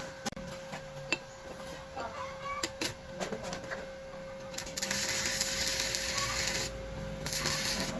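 A few sharp metallic taps, then from about five seconds in an arc welder's arc crackling and hissing in bursts of a second or two, breaking off and striking again. A steady thin hum runs underneath.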